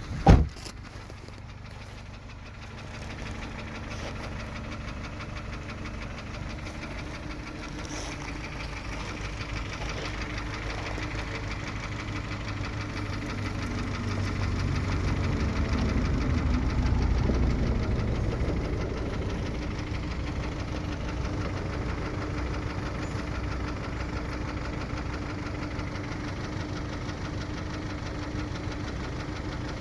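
Kia Optima 2.0-litre engine running with a rapid, even knock, the engine knock the owner is showing. Around the middle the engine rises in loudness and pitch for a few seconds, then settles back to a steady run. A single sharp click sounds right at the start.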